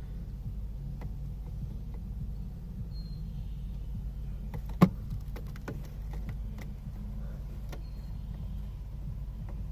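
Battery charger humming steadily while charging at about 30 amps. A sharp click comes about five seconds in, followed by a short run of lighter clicks and knocks.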